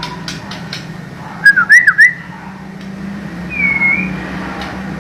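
White-rumped shama singing: a quick run of loud, bending whistled notes about a second and a half in, then a single clear, slightly falling whistle a couple of seconds later. A steady low hum runs underneath.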